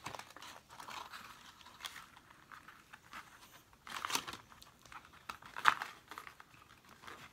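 Crinkling and rustling of plastic and card toy packaging as a Barbie outfit is worked free from its backing card, in irregular crackles with a few sharper ones, the loudest about five and a half seconds in.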